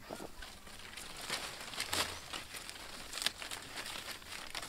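Light rustling and crinkling among bushes, with scattered small crackles; a couple of louder ones come about two and three seconds in.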